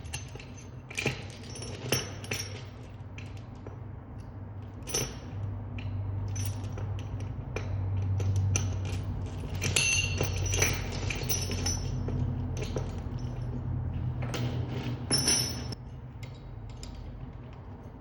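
Scattered light metallic clinks and clicks, some with a brief ring, over a low steady hum that swells through the middle and drops away near the end.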